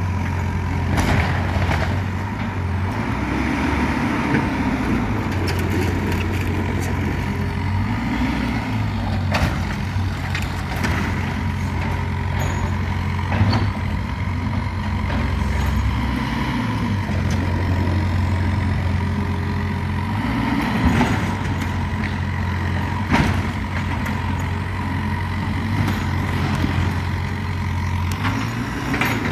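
Caterpillar 305 mini excavator's diesel engine running, its drone rising and easing every few seconds as the hydraulics take load, with a steady whine over it and a few sharp knocks.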